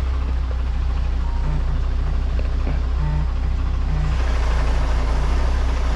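MAN lorry's diesel engine running with a steady low drone, heard from inside the cab.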